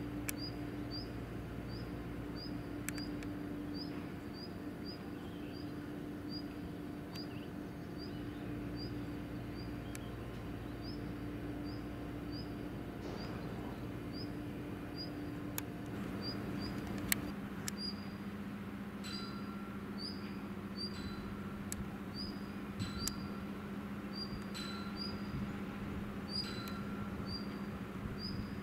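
Steady low machinery hum from the shipyard, its pitch dropping about halfway through. Over it a short high chirp repeats about every two-thirds of a second. From about two-thirds of the way in, a lower note joins it, sounding about every second and a half.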